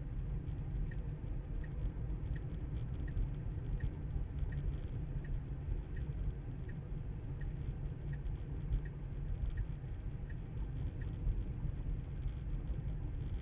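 Steady low road and tyre rumble inside a Tesla's cabin, with a turn-signal indicator ticking evenly about three times every two seconds. The ticking stops near the end, as the signal cancels.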